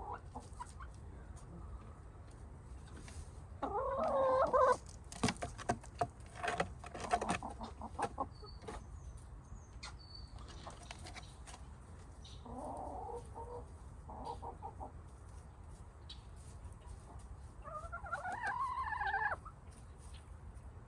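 Domestic hens clucking and calling in separate bouts: a loud call about four seconds in, softer clucks around the middle, and a longer wavering call near the end, with a run of sharp clicks in between.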